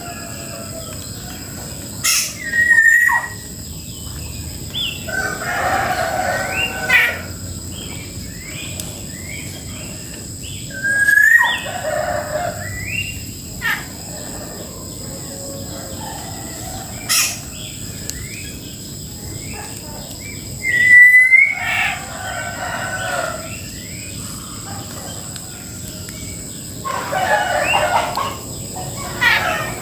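A rooster crowing three times, roughly ten seconds apart, amid the short chirps and calls of smaller birds.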